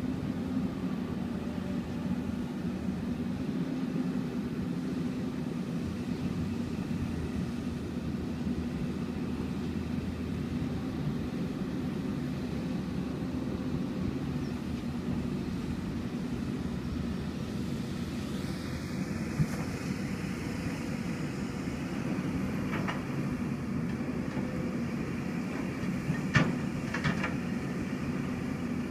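Hyundai 200LC-9 excavator's diesel engine running steadily, with a few sharp knocks in the last third, the loudest a little before the end.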